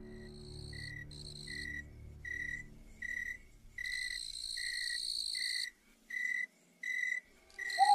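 Crickets chirping: a short chirp about twice a second, with a higher, thinner insect trill coming and going over it.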